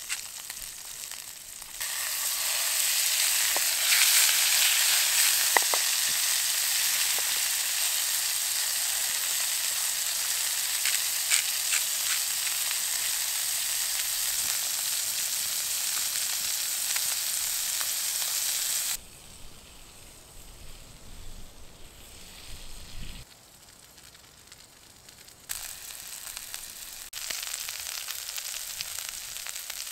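Two beef fillet steaks sizzling in oil in a frying pan. The sizzle starts loud about two seconds in, with a few small pops, turns much quieter a little past halfway, and picks up again near the end.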